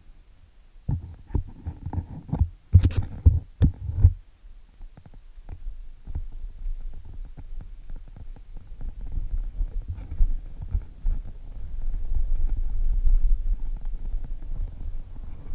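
Mountain bike riding a dry dirt trail, heard through a helmet camera's microphone: a run of heavy knocks and thumps for the first few seconds, then a steady low rumble of wind and tyres on dirt that grows louder near the end.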